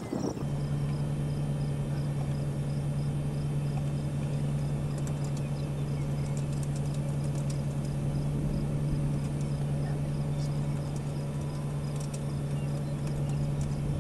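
A steady low hum, cutting in just after the start and stopping at the end, with faint high chirps repeating a few times a second and scattered faint clicks.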